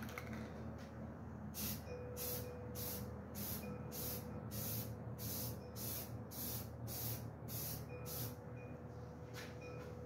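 Aerosol spray-paint can sprayed in short repeated hissing bursts, about two a second, with a brief pause near the end before a few more bursts.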